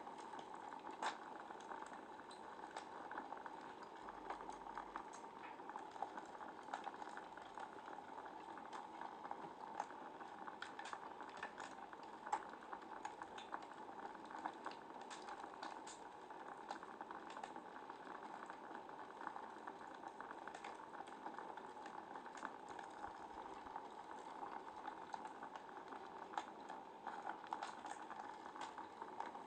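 Wood fire in a fireplace crackling steadily, with frequent small pops and snaps over a soft hiss.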